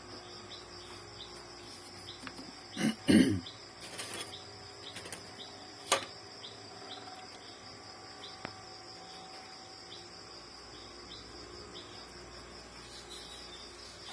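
Crickets chirping steadily with an evenly repeated pulse, under a couple of handling knocks and rustles about three seconds in and a single sharp click about six seconds in, from parts being handled during the printer repair.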